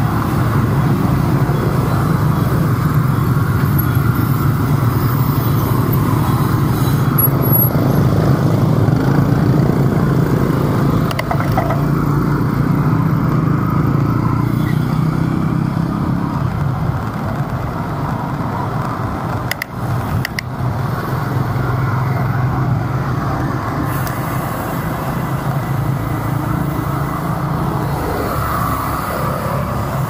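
Steady road traffic noise of motor vehicles, heard from a bike riding through city streets; the low rumble eases about halfway through.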